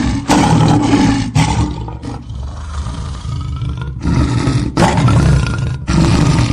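Lion roaring: a series of loud, deep roars, with a quieter stretch of about two seconds in the middle.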